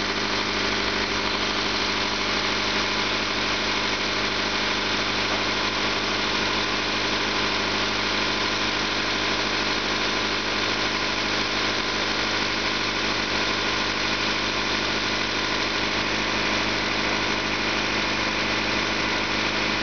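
1997 Honda Civic four-cylinder engine idling steadily, with no revving.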